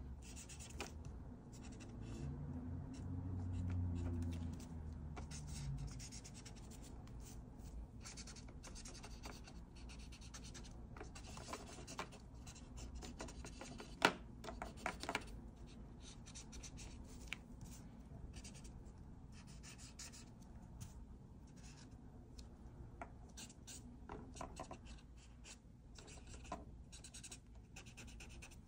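Felt-tip marker scratching over paper in many short, repeated strokes while colouring in. There is a sharp click about halfway through and a low hum for a few seconds near the start.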